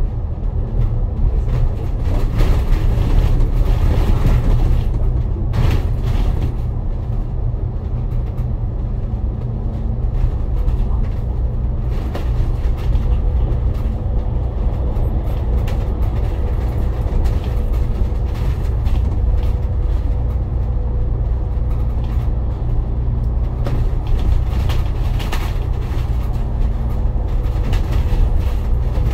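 A bus running steadily, heard from inside the cabin: a continuous low engine drone with road noise. A faint steady whine joins in about halfway through.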